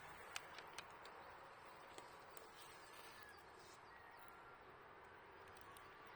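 Faint wood fire crackling, with a few sharp pops in the first couple of seconds over a steady hiss, and faint bird calls.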